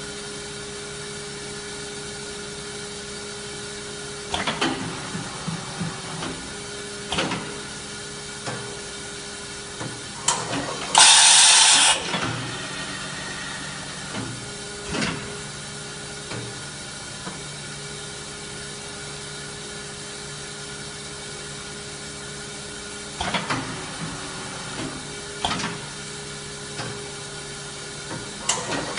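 Kitamura Mycenter 3X vertical machining center running with a steady hum and several steady tones. Groups of mechanical clicks and clunks come at intervals, and a loud burst of air hiss lasts about a second, a little over ten seconds in.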